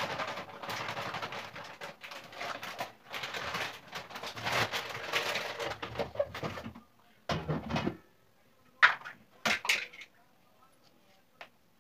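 Crinkling plastic flour packet and wheat flour pouring into an aluminium bowl, a dense crackle for the first several seconds. It is followed by a few sharp knocks about nine seconds in, the loudest sounds here.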